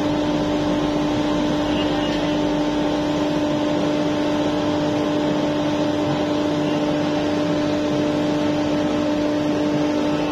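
Electric blower running with a steady hum, forcing air into the fire of a powder-coating curing oven to make the flame bigger and raise the oven's heat.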